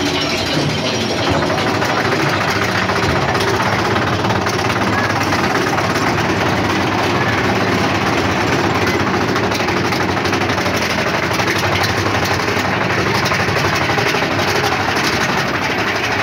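Big Thunder Mountain Railroad mine-train roller coaster running along its track: a loud, steady rattling rumble of the cars' wheels and couplings.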